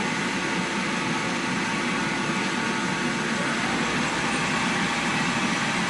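DEK 1209 furnace dryer running, its blower giving a steady, even rush with a few faint steady tones.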